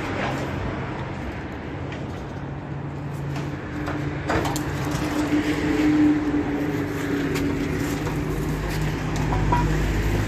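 Steady motor hum with a few sharp knocks and clatter about four seconds in.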